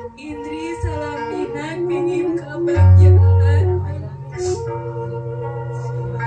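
Slow background music, a melody moving in held notes over a sustained bass line, with a louder low bass note in the middle.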